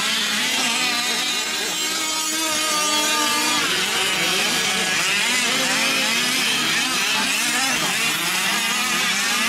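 Several 1/5-scale gas RC trucks' small two-stroke engines running together, their pitches rising and falling and overlapping as they rev up and down.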